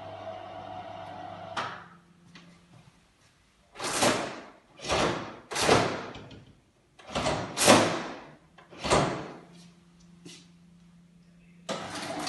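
Burglar-resistant external venetian blind with aluminium CDL slats jerked upward about six times, its bottom rail and slats clattering loudly against the push-up lock that holds it down. A steady hum cuts off about a second and a half in.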